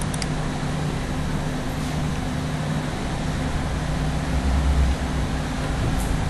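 Steady room background noise: a low hum with a hiss over it. A couple of faint clicks come near the start and again just before the end.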